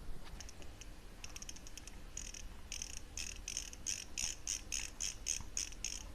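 Metal parts of a Juki LZ-2284 zigzag sewing machine's feed dog regulator clicking under hand adjustment, ratchet-like. A few light ticks at first, then an even run of about three clicks a second from about two seconds in.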